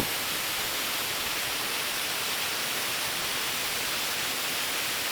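Waterfall ambience: a steady, even rushing hiss of falling water.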